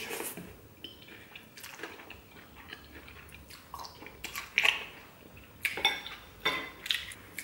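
Glass noodles slurped off a spoon and chewed, with a metal spoon clinking against a plate near the end.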